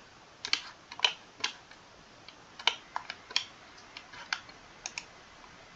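Irregular, sharp clicks of a computer keyboard and mouse, about a dozen in all, some in quick pairs, over a faint background.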